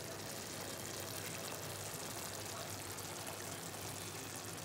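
Drumstick and tomato curry simmering in a pan, a soft, steady bubbling of thick gravy.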